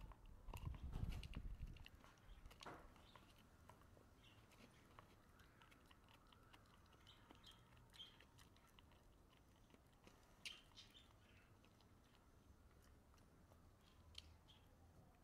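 Faint gnawing, with scattered clicks and scrapes, as a dog chews a rawhide bone. A low bumping rumble in the first two seconds is the loudest sound.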